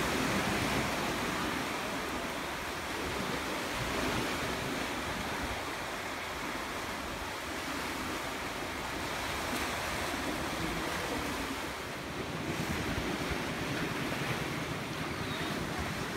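Small sea waves breaking and washing over a shallow rocky shoreline, a steady rushing wash that swells now and then, with wind rumbling on the microphone.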